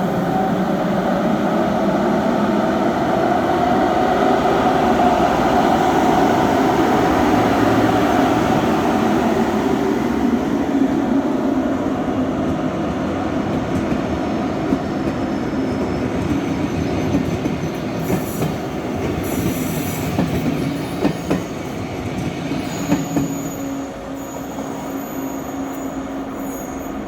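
ÖBB class 1144 electric locomotive moving with a push-pull train: a loud steady running noise with a tone that slowly sinks, the blower noise that earned the class its "Alpenstaubsauger" (Alpine vacuum cleaner) nickname. Through the second half it grows quieter, with sharp clicks of wheels over rail joints and some wheel squeal.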